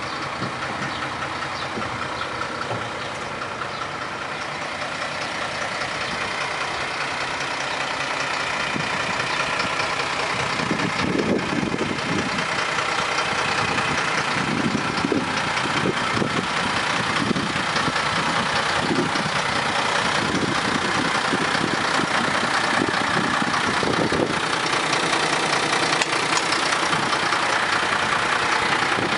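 MAN ME 18.250 truck's diesel engine idling steadily, growing louder over the first half as the cab is approached.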